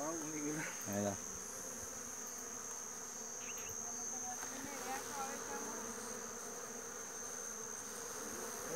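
A swarm of flies buzzing steadily around a dead animal, with a constant thin high insect whine above it. A couple of brief voice sounds come in the first second.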